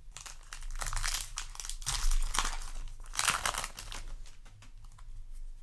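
Foil Yu-Gi-Oh! booster pack wrapper crinkling as it is handled and opened, in bursts that are loudest about two and three seconds in.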